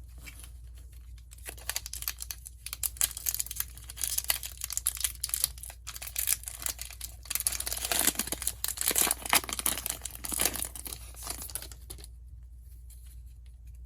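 A Magic: The Gathering booster pack wrapper being torn open and crinkled by hand, a dense crackling rustle that starts about a second in and stops a couple of seconds before the end.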